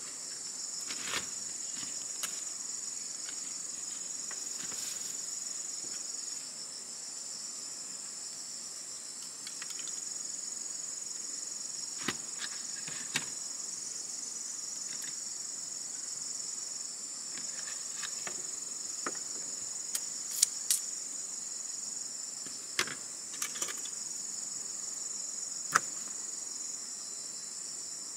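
Steady, high-pitched chorus of insects, with scattered clicks and taps of chopsticks and tongs against metal pans and plates, the sharpest near the end.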